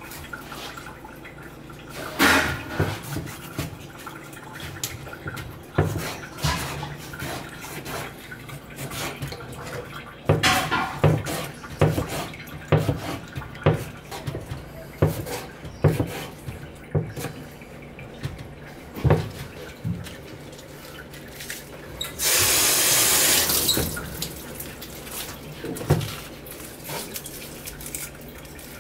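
Knife chopping tomato and green onions on a cutting board: irregular single knocks and short runs of chops over a steady low hum. About 22 seconds in, a tap runs into the sink for about two seconds.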